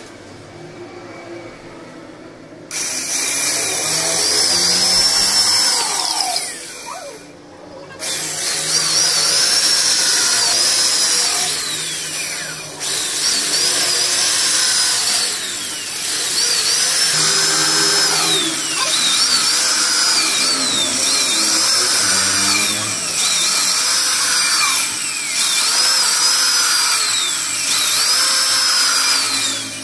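Electric hand drill boring a row of small holes into the edge of a willow cricket bat blade. The motor whines up to speed and winds down again for each hole, starting a few seconds in and repeating about once every two seconds.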